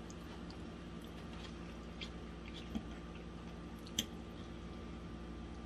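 Faint chewing, with a few light clicks of a knife and fork on a plate, the sharpest about four seconds in, over a steady low hum.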